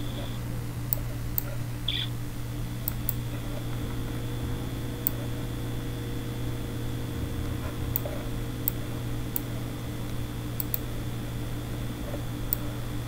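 Steady low room hum with about a dozen faint, short clicks scattered through it, from a computer mouse being clicked to change and zoom images.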